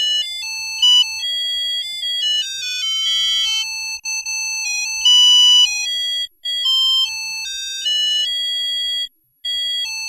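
Panasonic smartphone ringtone: an electronic melody of short, clear notes stepping up and down in a repeating phrase. It breaks off briefly about nine seconds in, then starts over.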